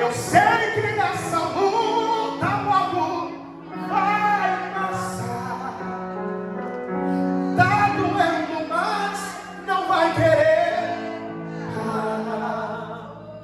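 Live gospel worship music: a singer's phrases, with held, bending notes, over the band's accompaniment.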